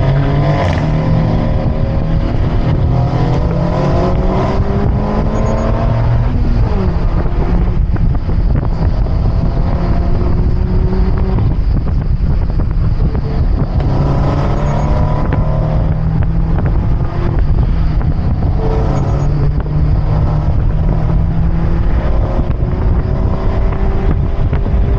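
Mazda MX-5's four-cylinder engine, heard from on board, rising in pitch as it accelerates and falling back as the driver lifts off, several times over, with wind rumble on the microphone.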